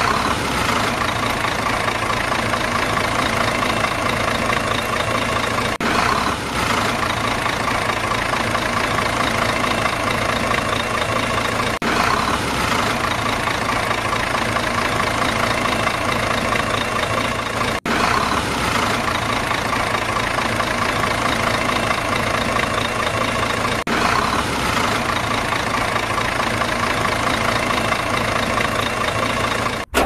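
Steady heavy engine sound, like a large diesel machine idling, repeating as a loop about every six seconds; it is dubbed over the toy vehicles rather than made by them.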